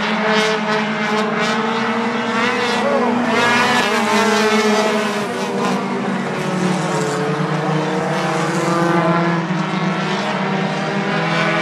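Four-cylinder compact race cars running on a short oval track, several engines at high revs whose pitch rises and falls as they go through the turns and pass. The engines are loudest a few seconds in.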